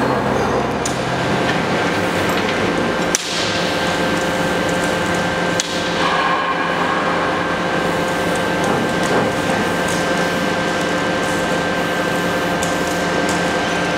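CNC punch press running: a steady mechanical hum with a few high, even whines through it, broken by two sharp knocks about two and a half seconds apart.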